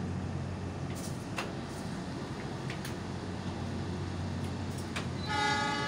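Steady low hum of a passenger train standing at a station platform, with a few faint clicks. Near the end comes a short, brief high tone with overtones.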